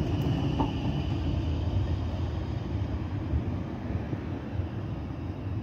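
Brussels TNG tram (Bombardier Flexity) rolling past and pulling away on its rails: a steady low rumble with a faint high whine that fades over the first few seconds.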